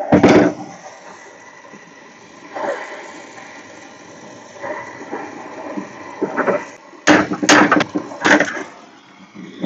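A brazing torch flame hissing steadily on a copper joint of a thermostatic expansion valve as the joint is heated to unsweat it, with the sound muffled. Several loud knocks and clatters of metal against metal break in, the loudest cluster about two-thirds of the way through, when a tool grips the valve.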